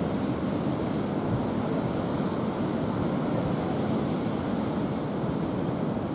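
A steady, even rushing noise of wind or surf, with no separate events standing out.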